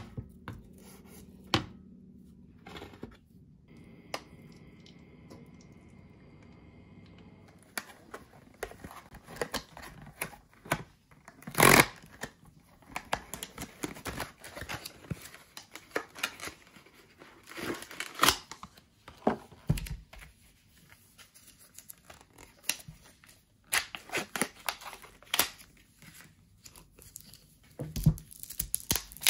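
Cardboard camembert box being opened and the paper-wrapped cheese handled: a run of short tearing and crinkling sounds of cardboard and paper, with one loud rip about twelve seconds in, after several quieter seconds of faint clicks.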